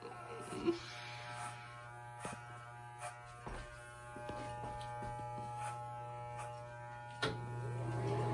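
Corded electric hair clippers buzzing steadily as they cut a man's hair, with a few small clicks; a sharp click a little after seven seconds in, after which the buzz is louder.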